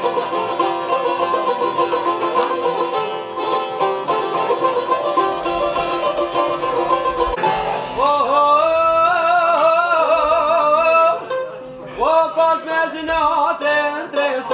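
Çifteli and sharki playing a quick plucked instrumental passage of an Albanian folk song; about halfway through a man's voice comes in over the strings, singing long, wavering held notes, with a short break before the next phrase.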